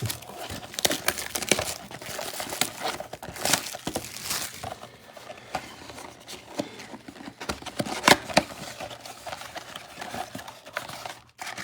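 Plastic card packaging crinkling and tearing as a box of trading cards is cut open with a small knife, with irregular crackles and a few sharp rips.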